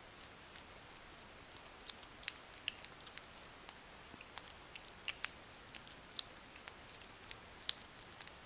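Cat chewing dry kibble, with irregular sharp crunches, a few louder than the rest.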